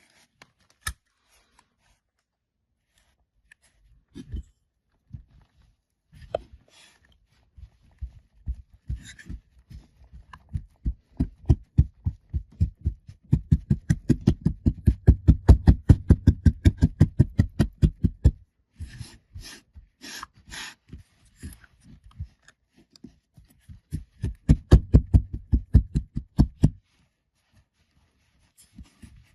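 Kinetic sand packaging being handled and unpacked: two long runs of quick soft taps, about five a second, with a few short bursts of crinkly rustling between them.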